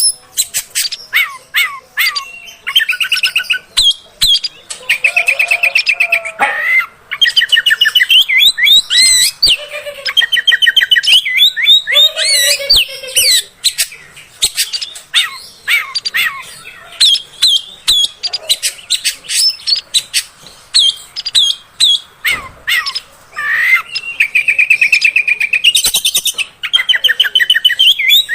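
Oriental magpie-robin (kacer) singing a long, varied song of fast buzzy trills, quick sweeping whistles and sharp chips, phrase after phrase with only brief gaps.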